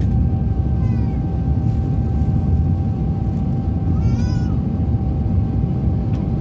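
Jet airliner cabin noise in flight: a loud, steady low rumble of the engines and airflow with a constant hum over it. Two short high-pitched cries rise and fall over the rumble, about a second in and again about four seconds in.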